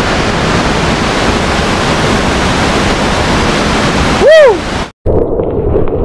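Loud, steady roar of a huge waterfall in full monsoon flow, heard close by. About four seconds in, a short pitched tone rises and falls over it, then the roar cuts off abruptly and a much quieter scene follows.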